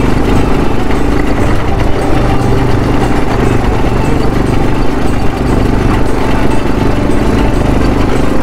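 ATV quad bike engine running hard at steady revs while being ridden fast, its thumb throttle held down.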